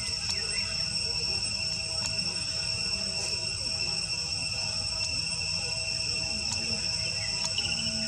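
Steady, high-pitched drone of an insect chorus, crickets or cicadas, holding several even tones without a break, over a low rumble.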